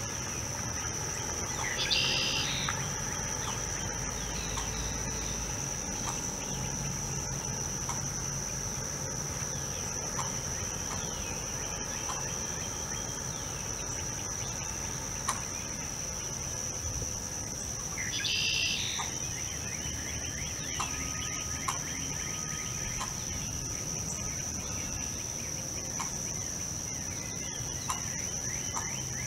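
Wetland ambience: insects keep up a steady high-pitched drone on one note, and a bird gives a short call twice, about two seconds in and again about eighteen seconds in.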